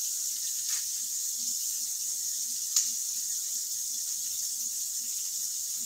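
Onion, bell pepper and bacon sizzling steadily in a frying pan, with a sharp click about three seconds in.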